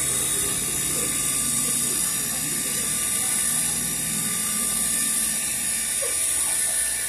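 Refrigeration vacuum pump running steadily.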